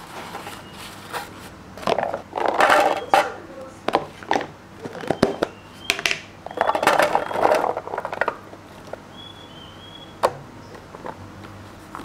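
Kitchen handling noises as raw food is packed for storage: two longer spells of rustling, about two seconds and six and a half seconds in, among scattered clicks and light knocks.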